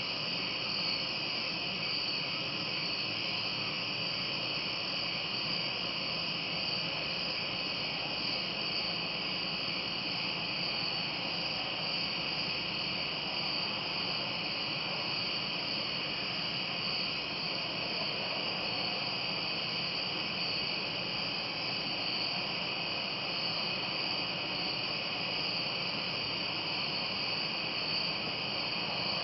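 Steady, unbroken chorus of night-singing insects, a continuous high-pitched shrill that does not change.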